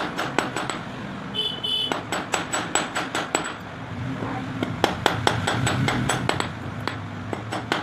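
Hand hammer striking a thin silver strip against a steel bench block in quick runs of light, sharp blows, with a short gap and a brief metallic ping about one and a half seconds in. This is hand-forging the strip into a ring shank.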